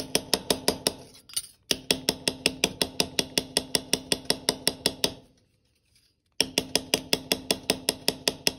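Rubber mallet rapidly striking a copper sheet on a steel bench anvil, about six blows a second, each with a ringing tone, hammering the sheet completely flat. The blows break off briefly about a second in and stop for about a second after five seconds, then start again.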